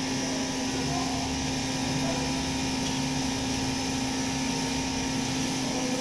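A steady machine drone with a constant low hum that does not change.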